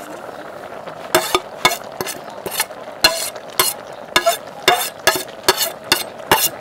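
A metal spoon clinking and knocking against a white enamel plate, more than a dozen sharp clinks two or three a second, as greens are scraped off into the pot. A steady hiss from the simmering pot runs underneath.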